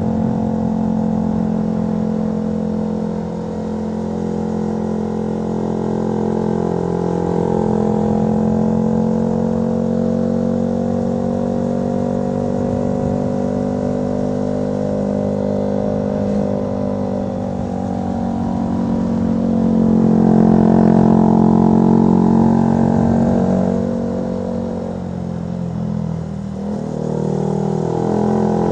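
Honda CB125R's single-cylinder engine through a LeoVince LV One Evo aftermarket exhaust, heard from the rider's seat. The engine note rises and falls with the throttle through the bends and is loudest about two-thirds of the way through.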